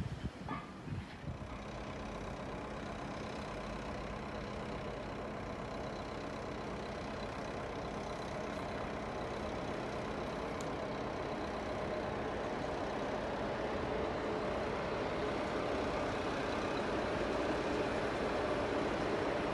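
Electric commuter train running along the track: a steady rumble that slowly grows louder, with a faint whine over it. In the first second or so, a few low knocks of wind on the microphone.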